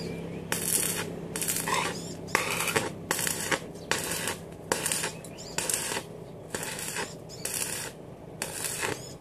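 Electric arc welding in short bursts: the arc crackles and sputters for a fraction of a second at a time, roughly once a second, over a steady low hum.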